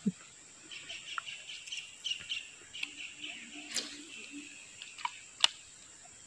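Small birds chirping repeatedly over a steady high hiss, with two sharp clicks, the second and louder one about five and a half seconds in.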